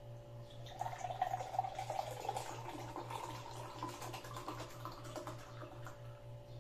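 Juice poured in a thin stream from a can into a drinking glass, a splashing, trickling pour that gets louder about a second in and slowly rises in pitch as the glass fills.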